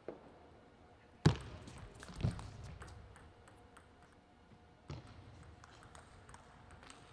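Table tennis ball clicking off bat and table in a short point, with two loud thuds about a second apart, then faint light ticks of the ball.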